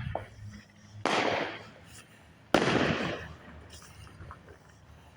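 Two fireworks going off about a second and a half apart, each a sudden loud bang that trails off over about half a second.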